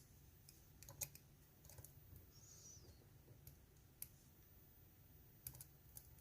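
Faint, scattered metallic clicks of a lock pick working the pin stacks of a GEGE euro cylinder under tension, loudest about a second in.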